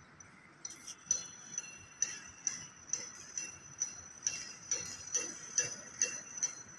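Rhythmic metallic jingling: a sharp clink a little over twice a second, each one ringing on. It starts about half a second in after a short lull.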